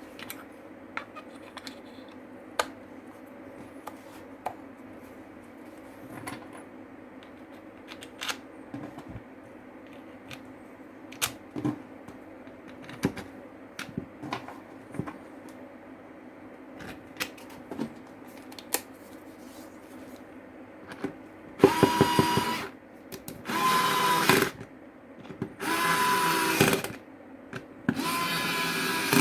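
Scattered light clicks and knocks of parts being handled over a low steady hum, then a power drill running in four short bursts of about a second each near the end.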